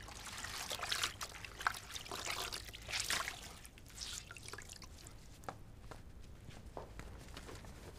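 Water splashing and dripping as a wet cloth is wrung out in a plastic basin, busiest over the first few seconds. Later only a few faint soft taps.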